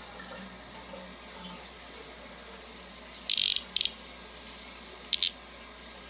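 A cicada held in the fingers giving loud, harsh buzzing squawks: two short bursts a little past halfway, then two quick ones near the end. This is the distress buzz that a cicada makes when it is handled.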